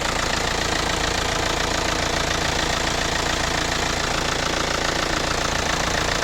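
Diesel engine idling steadily with an even, dense clatter, which the owner says sounds quiet and normal at idle; his harsh noise shows up only under way.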